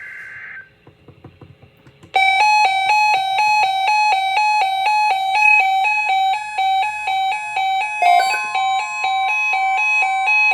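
Emergency alert tones between two National Weather Service broadcasts. A short buzzy burst of digital data, then from about 2 seconds in a loud electronic alarm of rapidly alternating beeping tones, about four a second. A second steady tone joins about 8 seconds in.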